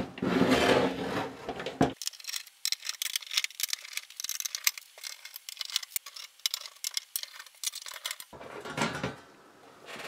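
Metal chassis of a Luxman R-5030 receiver being turned over and slid on a wooden tabletop, then a screwdriver undoing the bottom-cover screws with many quick light ticks and scrapes. A short burst of handling noise near the end as the bottom cover is lifted.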